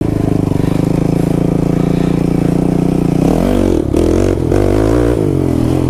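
Kawasaki KFX 450R quad's single-cylinder four-stroke engine running hard at high, steady revs. About three seconds in the revs drop, then rise and fall unevenly, with a couple of brief dips.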